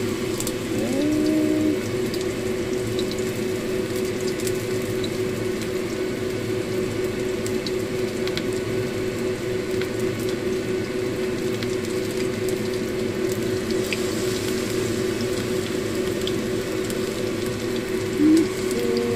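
Battered banana pieces frying in hot oil in a pan: a steady sizzle with scattered small crackles, over a steady low hum. A brief louder sound comes near the end.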